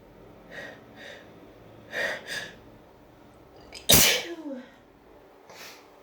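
A person's sneezing fit. A few quick, sharp breaths build up to one loud, sudden sneeze about four seconds in, which ends in a falling voiced tail. A head cold brings the sneezes on.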